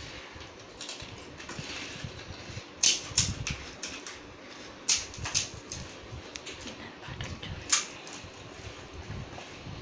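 Crisp, hollow fried puri shells being cracked open with the fingers: several short, sharp cracks, the loudest about three, five and nearly eight seconds in.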